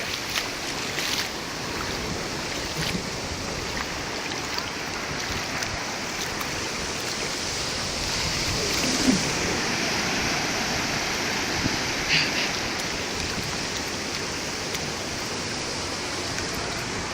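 Ocean surf washing steadily onto the beach, swelling a little about halfway through.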